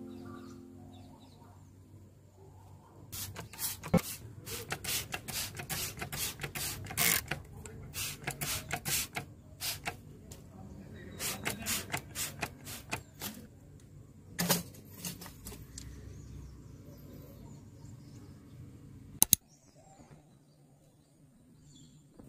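Plastic trigger spray bottle squirting water onto potted plants: a quick string of short sprays, two or three a second, for about ten seconds. A sharp double click comes near the end.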